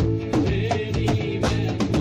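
Live band music with a drum kit keeping a steady beat, its regular hits over sustained bass and chords.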